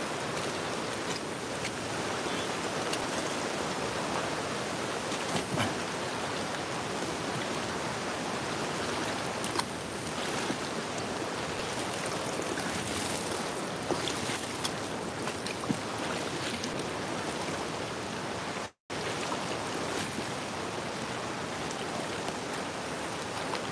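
Steady rush of flowing floodwater, with a few light splashes now and then from wading in the shallows.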